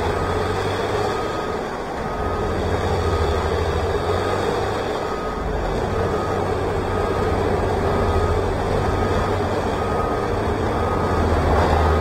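Heavy machinery running steadily, with a backup alarm beeping about once a second.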